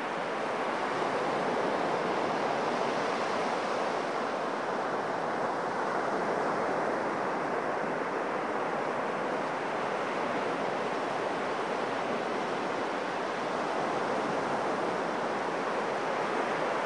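Surf breaking and washing up a sandy beach: a steady rushing noise that swells and eases only slightly.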